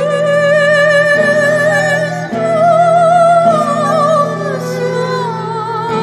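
Live chamber ensemble of Chinese and Western instruments playing a slow piece. A high melody moves in long notes with wide vibrato over a sustained low drone, with a few soft struck or plucked accents.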